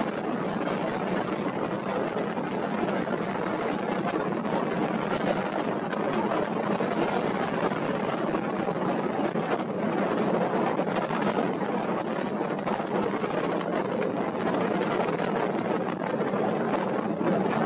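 Steady, even rushing noise of wind and choppy water at sea, with no distinct engine note and no single event standing out.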